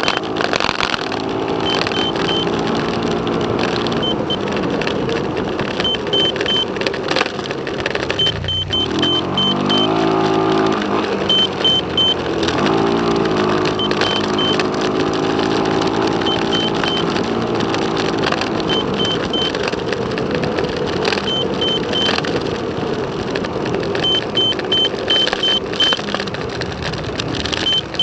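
Car engine and road noise while driving. About a third of the way in, the engine climbs in pitch twice as the car accelerates through the gears, then slowly drops back.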